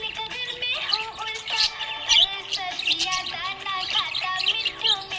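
Budgies chirping and warbling in many short, sharp calls, with background music playing alongside.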